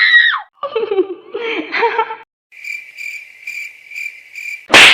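Comedy sound-effect clips played back to back: a short voice snippet with laughter, then the classic cricket-chirping 'awkward silence' effect as a run of evenly spaced high chirps, cut off near the end by a brief, very loud burst.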